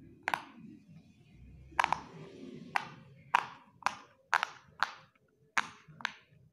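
A silicone rainbow square pop-it fidget toy having its bubbles pressed in with the fingers, one at a time, each giving a sharp pop. About nine pops, coming about two a second in the second half.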